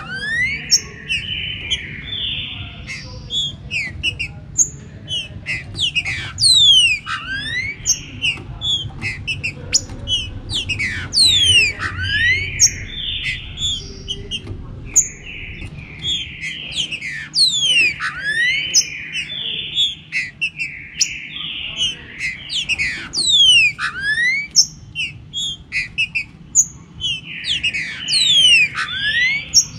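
Green-winged saltator (trinca-ferro) song: loud whistled phrases repeated every few seconds, among many quick rising and falling chirps.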